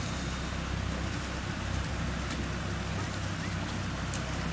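Steady rush of a shallow rocky creek, with a low rumble underneath.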